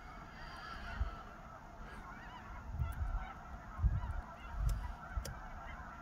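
A large roost of snow geese calling, a dense unbroken chorus of many overlapping honks, with a few low thumps on the microphone about halfway through.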